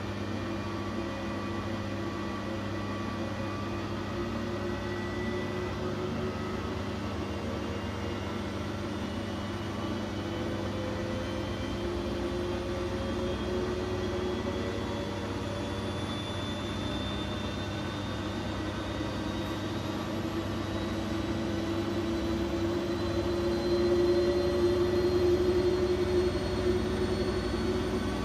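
Siemens Siwamat IQ 716 washing machine running, its motor whine rising slowly and steadily in pitch as the drum gathers speed, over a steady low hum; it grows a little louder near the end.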